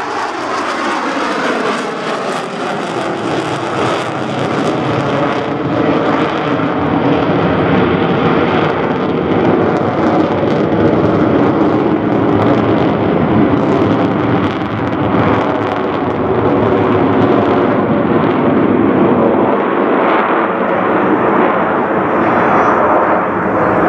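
Jet engines of a formation of F/A-18 Hornets flying past overhead: a loud, steady jet roar whose pitch falls over the first few seconds as the jets pass.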